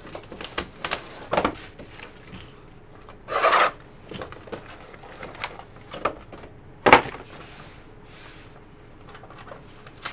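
Trading cards being handled and sorted on a table: cards sliding and rubbing against each other, with scattered light taps, a short louder rustle about three and a half seconds in and a sharp tap near seven seconds.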